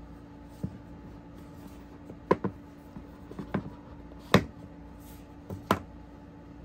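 A cardboard iPhone box being handled and opened by hand: a scattering of sharp taps and knocks, about six in all, with the loudest about four seconds in, as the lid is worked off the box.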